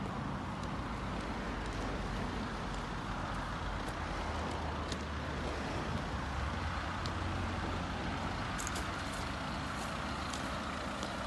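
Audi A4 40 TDI's 2.0-litre four-cylinder diesel engine idling steadily, a continuous low hum.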